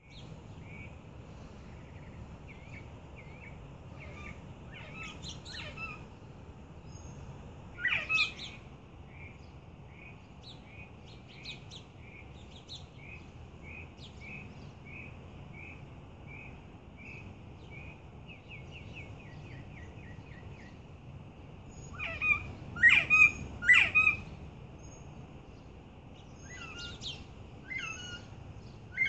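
Young bobwhite quail at eight weeks giving their first calls, not yet the full bob-white whistle: a long run of short, soft, evenly spaced notes, about two a second. Louder sharp calls break in about eight seconds in, three in quick succession a little past twenty seconds, and a couple more near the end.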